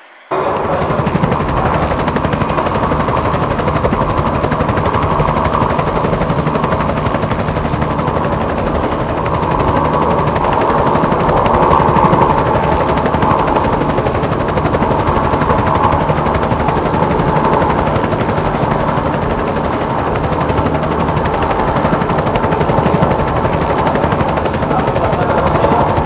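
Helicopter rotor chop, a continuous rapid thudding with turbine noise, a little louder around the middle.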